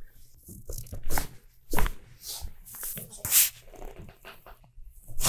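Handling noise of a low back chiropractic adjustment: rustling and shifting on the treatment table, broken by several sharp clicks and knocks, the loudest near the end.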